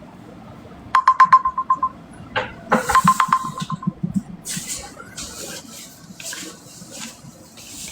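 An electronic alert tone, a short buzzy beep with rapid ticks, sounds twice, about a second in and again about three seconds in. Soft hissing bursts follow.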